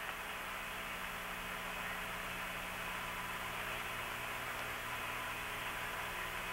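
Steady hiss with a low hum on the Apollo 8 air-to-ground radio channel: an open line carrying only static.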